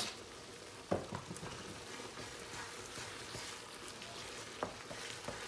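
Savoury mince sauce sizzling in a frying pan as it simmers, a steady soft hiss, with a light knock about a second in and another near the end.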